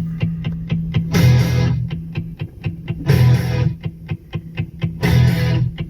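Music with electric guitar over a steady beat: short ticks about four times a second and a louder hit about every two seconds.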